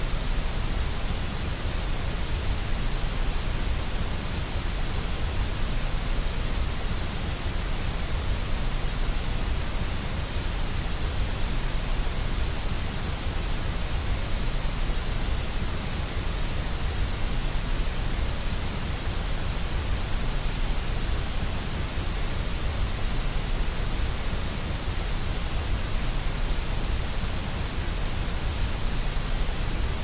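Steady white noise: an even, unchanging hiss with a low rumble underneath.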